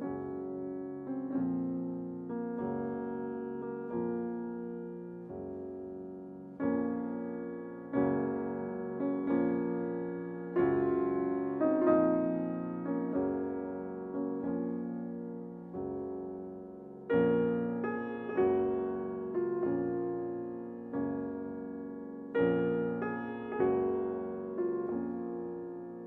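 Slow, gentle piano music: notes and chords struck about once a second and left to fade, louder in the middle and again near the end.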